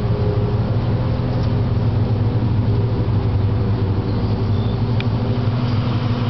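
A steady, unbroken mechanical hum with a low pitched drone, like a motor or engine running, and a single brief tick about five seconds in.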